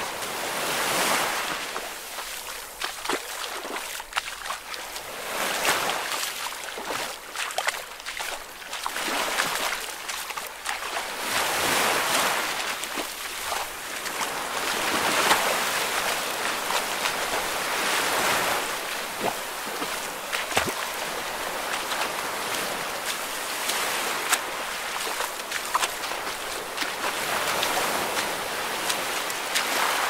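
Ocean surf: waves washing in and drawing back, the hiss swelling and falling every few seconds, with small sharp splashes scattered through it.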